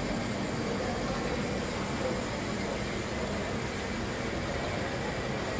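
Steady mechanical hum and hiss of a Sodick A535 CNC wire EDM machine running, an even noise with a faint low hum and no distinct knocks or changes.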